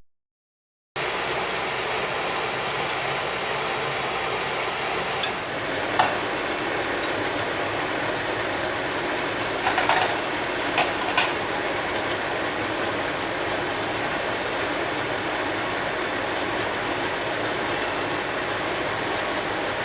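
Steady sizzling of a stir-fry frying in a hot pan, with a handful of sharp clicks of a utensil against the pan around the middle.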